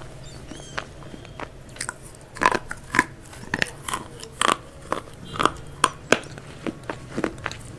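Crispy fried chicken being bitten and chewed, with sharp, irregular crunches starting about two seconds in.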